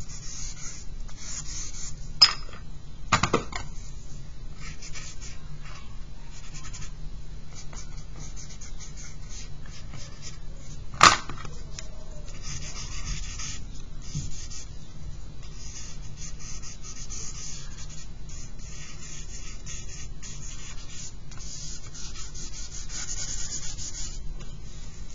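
Charcoal stick scratching and rubbing on drawing paper in short, stop-start strokes. Two sharp taps stand out, about two seconds in and about eleven seconds in.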